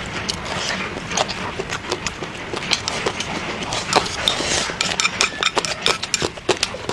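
Close-miked chewing and lip-smacking of food, a dense run of wet mouth clicks and smacks over a soft hiss.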